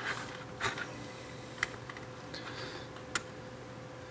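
Hands handling an LED light panel in its plastic housing: a few light, scattered clicks and taps, the sharpest about one and a half and three seconds in.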